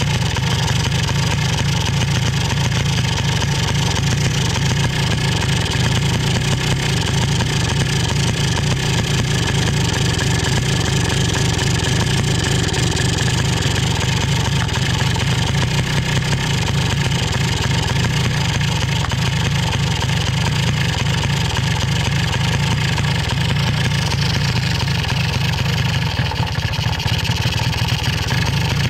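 Polaris Sportsman 90's 90cc two-stroke engine idling steadily, running on its freshly cleaned and re-installed Mikuni carburetor.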